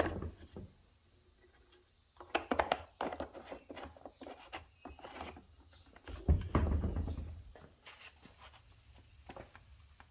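Clicks, taps and light knocks of parts and tools being handled during a repair on a string trimmer, in short clusters, with a heavier dull thump about six seconds in.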